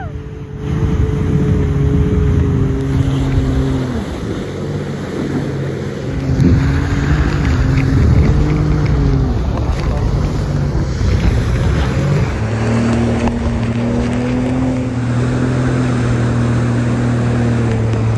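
Personal watercraft (jet ski) engine running under way, with water rush and wind on the microphone. The engine note dips about four seconds in as the throttle eases, picks up again, and holds steady through the second half.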